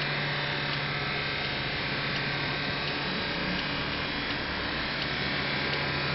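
A car engine running with a steady, unbroken drone while the car pours out thick smoke from a mechanical failure.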